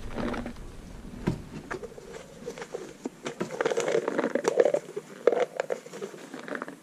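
Snap-on lid of a plastic tub being worked loose and pulled off by hand: a scatter of sharp plastic clicks and crinkling.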